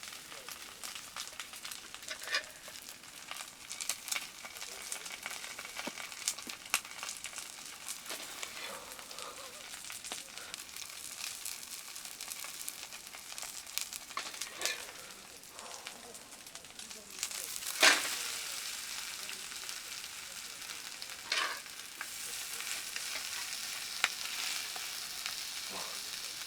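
Food frying and sizzling in a pan, with scattered clicks and knocks of a cooking utensil against it. A sharp knock about 18 seconds in is the loudest sound, and the sizzle is louder from then on.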